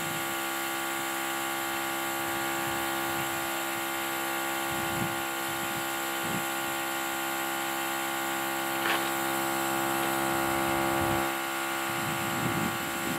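Viking portable tire inflator and jump pack's small air compressor running steadily, pumping air into a Jeep tire, with an even, unchanging hum.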